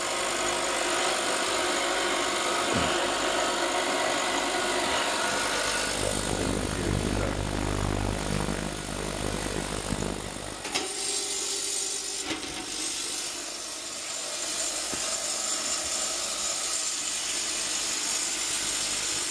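Ultrasonic cleaner running with its tank open and brass gears in its wire basket: a steady buzzing hiss from the cleaning bath. A low rumble joins about six seconds in and stops abruptly a few seconds later.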